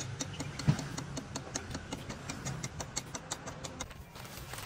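Machinery running with a steady low hum and rapid, fairly regular clicking, several clicks a second. The sharpest click comes about 0.7 s in.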